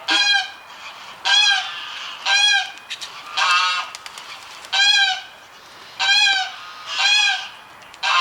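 A waterfowl calling again and again while it follows a person, giving short, loud calls about once a second, each rising and then falling in pitch.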